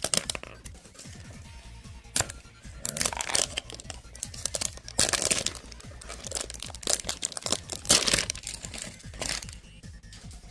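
Packaging of a Pokémon card box being handled and opened: plastic and foil crinkling and tearing in irregular bursts, with a sharp click about two seconds in. Background music plays underneath.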